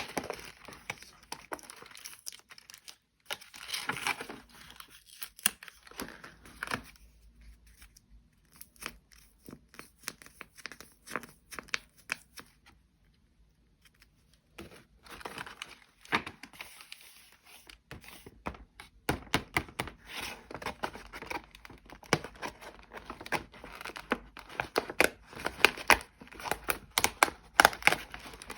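Blind-bag packaging being crinkled and torn open by hand, with irregular crackling and sharp snaps. There is a quiet pause near the middle before the crinkling resumes.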